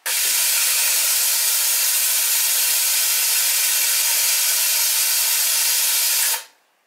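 Witschi ALC 2000 watch water-resistance tester hissing steadily as air is drawn out of its sealed chamber for the vacuum stage of the test. The hiss cuts off sharply near the end, once the chamber reaches −0.7 bar.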